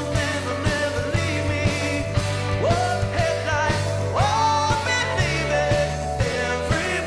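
Live rock band playing: drums keeping a steady beat under bass, electric guitar and keyboard. Two notes slide up in pitch, the first about two and a half seconds in and the second about four seconds in.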